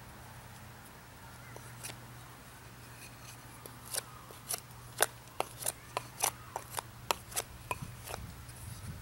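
Bark River Bravo 1.5 knife blade shaving and scraping a wooden hearth board for a bow-drill set: a run of short, sharp cutting strokes, about three a second, starting about four seconds in.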